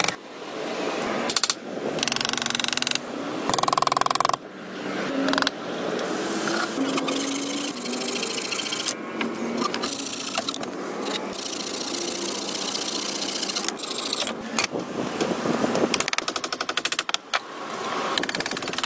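Wood being worked by hand: the rasping strokes of a folding pruning saw cutting through a thin pole, among knocks and scrapes of logs being handled. The sound changes abruptly several times.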